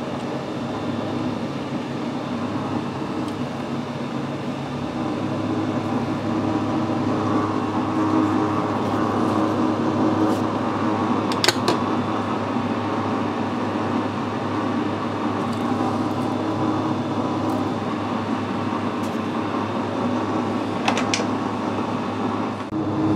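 Metal lathe running while a clamp-type knurling tool rolls a knurl into a turning metal bar, with its two knurl wheels gripping the bar top and bottom. The steady machine noise gets louder about five seconds in. There is a sharp click about halfway through and a couple more near the end.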